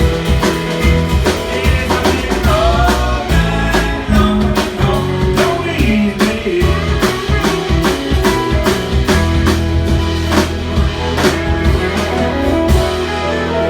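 Rock music: electric guitar lines over bass and a steady drum-kit beat, with some singing.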